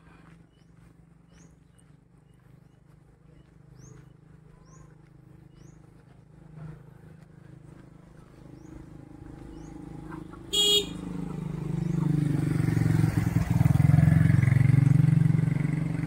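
A motorcycle engine grows louder as it approaches and passes, loudest in the last few seconds, with a short horn toot about ten and a half seconds in. Before that it is mostly quiet, with short high chirps repeating every second or so.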